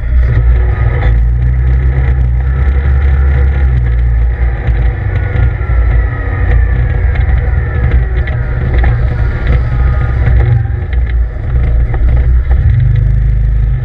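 CF Moto ZFORCE 800EX side-by-side under way on a rough dirt trail. Its V-twin engine runs with a loud low drone, and its pitch rises and falls with the throttle. Frequent knocks and rattles come from the bumpy ride, heard from inside the cab.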